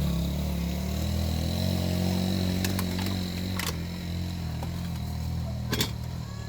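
A small motorcycle engine running steadily and fading away, with three sharp clicks, the loudest near the end.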